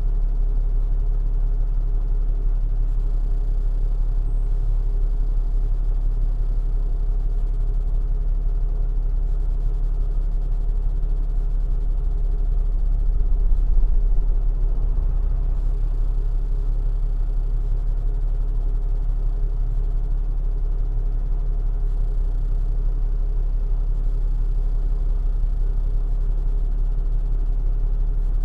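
A vehicle being driven, with a steady low rumble of road and engine noise that swells briefly about halfway through.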